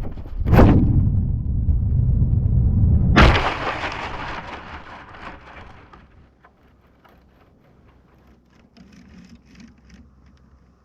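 Heavy wind buffeting on the microphone of a GoPro riding a foam glider in flight. About three seconds in, the glider crashes into tree branches, and a crackling rustle of leaves and twigs fades over a couple of seconds.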